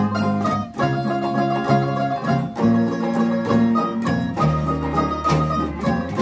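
Small acoustic string band playing an instrumental tune: banjo and acoustic guitars plucked and strummed over a moving acoustic bass line.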